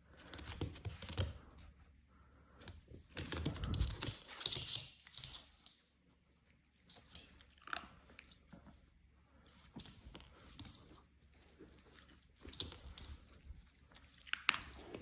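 A dog chewing and crunching a treat in irregular bursts of crunching and crackling.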